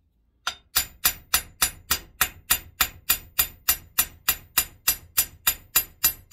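Hammer tapping a copper rivet over a steel round-stock backer clamped in a vise, about twenty quick, even metallic taps, roughly three and a half a second, starting about half a second in. The rivet is being peened over to tighten a candle cup that is still a little loose.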